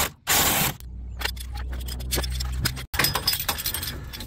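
Impact wrench firing a short burst on the harmonic balancer puller's centre bolt, then running lower and steadier with rapid ticking as it slowly draws the balancer off the crankshaft. It cuts off sharply, followed by loose metal clinking and scraping as the freed balancer is handled.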